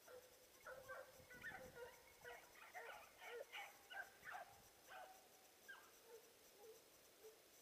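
Hunting dogs barking faintly: a quick run of short, yelping barks that thins out after about five seconds, typical of hounds driving wild boar.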